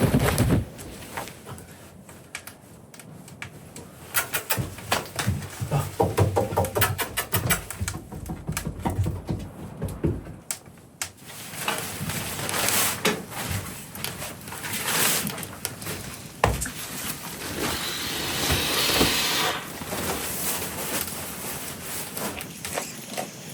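Irregular knocks, clicks and rattles of objects being handled in a small room, with a hiss lasting about two seconds near the end.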